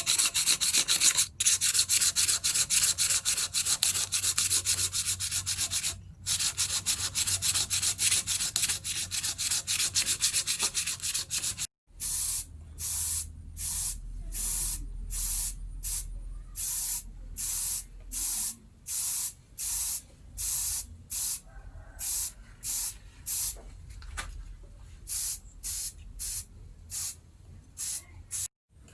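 Hand-worked abrasive strokes on the knife, back and forth: quick and run together at first, then separate strokes about two a second.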